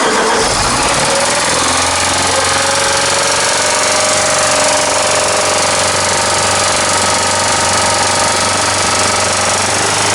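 Ford car engine running at a steady, fast idle of about 3000 rpm, revs stuck high after a mass air flow sensor swap. It carries a persistent knock that the repairs have not cured.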